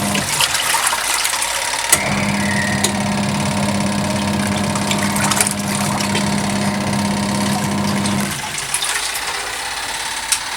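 A Von twin-tub washing machine filling: water runs steadily into the wash tub while the machine's motor hums. The hum cuts out briefly near the start and again near the end.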